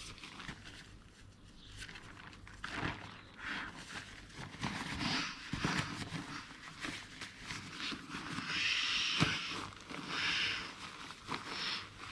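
Lightweight inflatable sleeping mat being handled and inflated: fabric rustling and crinkling, with several short hissing bursts of air, the longest about two thirds of the way through.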